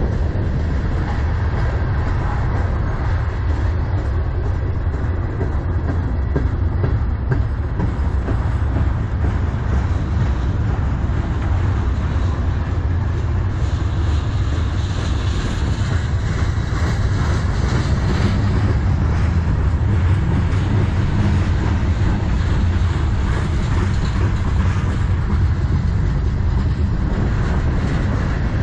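Freight cars of a manifest train rolling past close by: a steady, loud noise of steel wheels on the rails, with many quick clicks as the wheels cross the rail joints.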